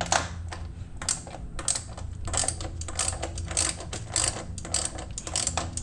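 Socket ratchet wrench with a 12 mm socket clicking in quick uneven runs as a bolt is worked loose on the engine's intake side.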